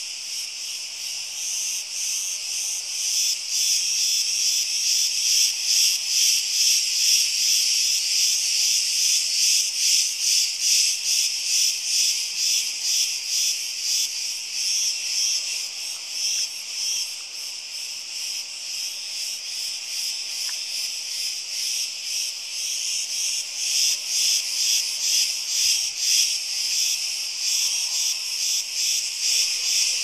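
Cicada song: a loud, shrill, continuous buzz made of rapid pulses, swelling and easing in loudness.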